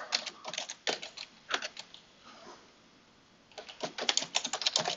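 Typing on a computer keyboard: a few short bursts of keystrokes, a pause of about a second and a half, then a quick run of keystrokes near the end.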